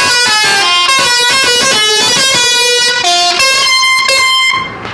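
Indonesian bus telolet horn, a bank of musical air horns, playing a quick tune of short notes that jump in pitch, then cutting off near the end.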